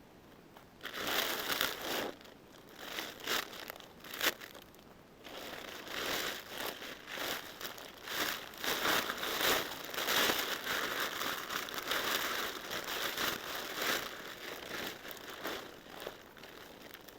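Crinkling and rustling, as of plastic sheeting being handled, in irregular bursts starting about a second in.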